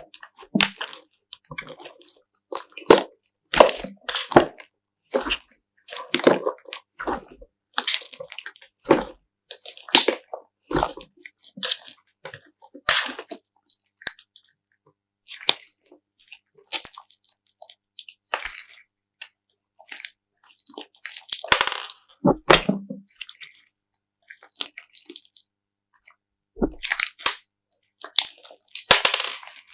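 Slime being pressed and worked by hand: a run of short, uneven sticky popping and clicking noises, with longer stretches about 21 seconds in and near the end.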